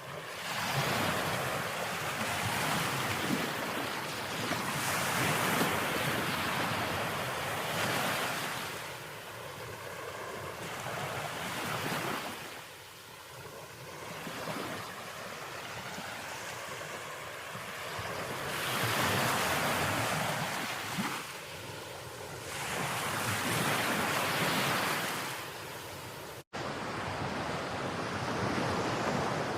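Ocean surf breaking on a beach, the wash swelling and falling away every few seconds. A sudden brief dropout near the end, where the recording cuts to another take.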